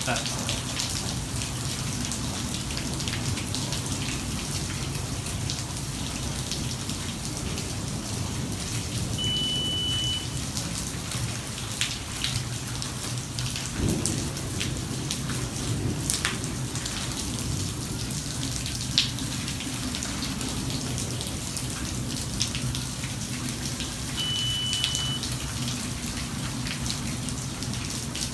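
Heavy rain falling steadily in a thunderstorm, with a low rumble of thunder. A short, high-pitched beep sounds twice, about fifteen seconds apart.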